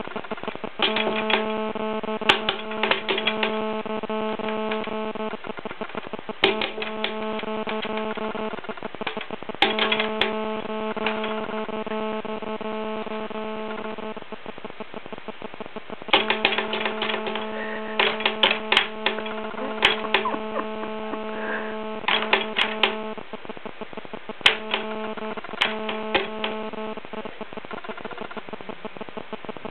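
Electrical hum with crackling clicks, cutting in and out in five stretches of two to seven seconds, the clicks bunched where the hum is on.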